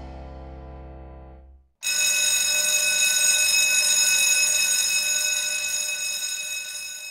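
Music ends on a fading chord; about two seconds in, a shrill, steady alarm ringing starts abruptly and runs for about five seconds before cutting off.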